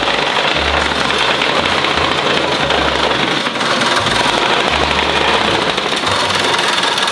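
Petrol vibratory plate compactor running steadily, its engine and vibrating plate making a dense, continuous clatter on concrete paving blocks as it compacts them.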